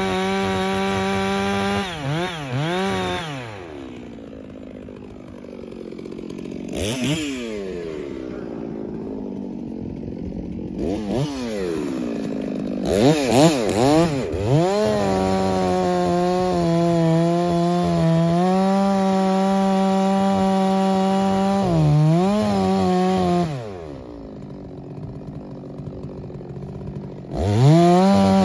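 FarmMac F660, a clone of the Stihl 660, a large two-stroke chainsaw, running at full throttle in a cut through a big log, dropping to idle around 4 s, blipped and revved back up, held high and steady for several seconds, falling back to idle around 24 s, and revving up again near the end.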